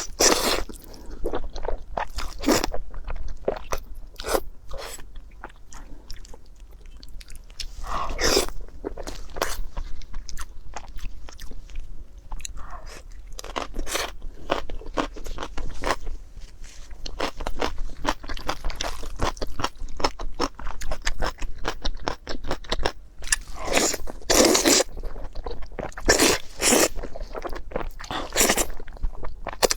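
Close-miked eating: a person biting into and chewing crunchy food, a steady run of crisp crunches with louder bites every few seconds.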